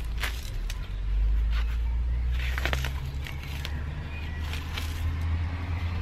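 Weeds being pulled by hand from a gravel strip: scattered crackles and rustles of stems and roots tearing free and gravel shifting. A steady low rumble runs underneath and is louder than the crackles.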